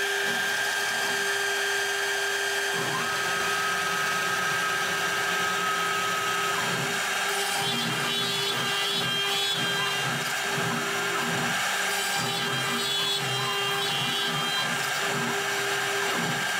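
CNC router spindle whining steadily while its bit plunges into and cuts small pockets in a plywood sheet, with the sound of the cut shifting as the machine moves. A second, higher whine joins for a few seconds near the start.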